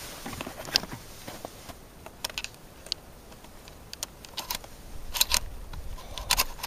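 Shotgun shells being pushed into the tube magazine of a Mossberg 500 12-gauge pump-action shotgun: scattered short metallic clicks and rattles, with a group of sharper clicks about five seconds in and again near the end as the next shell seats.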